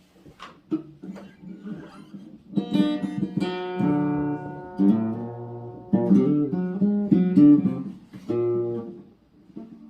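Acoustic guitar: a few soft plucked notes, then loud strummed chords changing about once a second from about two and a half seconds in, stopping shortly before the end.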